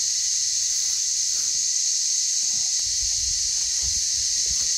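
Steady, high-pitched chorus of insects, with a few faint low thumps from about three seconds in.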